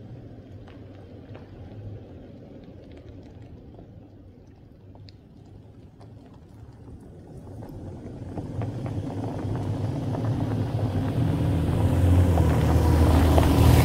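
Toyota Tacoma pickup rolling down a gravel road toward and past the microphone, engine running and tyres on the gravel. It grows louder from about halfway through and is loudest near the end as it draws alongside.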